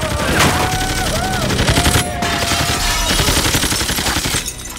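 Rapid automatic gunfire, a dense unbroken run of shots, with a long wavering scream over it.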